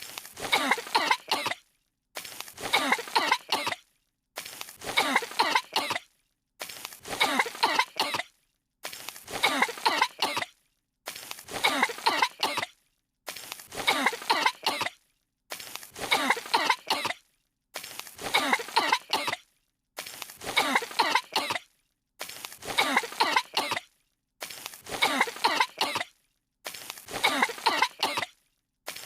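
Two cartoon girls coughing from dust that has fallen on them: a quick run of several coughs lasting about a second and a half, then a brief silence, the same burst repeating over and over about every two seconds.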